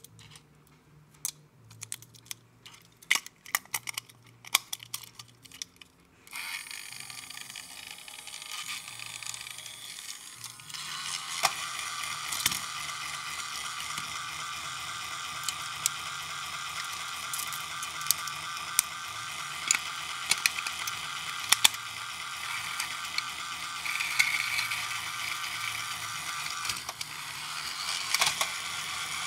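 Plastic clicks and snaps as a battery is fitted into a battery-powered toy train engine's chassis. About six seconds in, the engine's small electric motor and gears start whirring steadily. The whir gets louder about eleven seconds in and runs on with a light clicking over it.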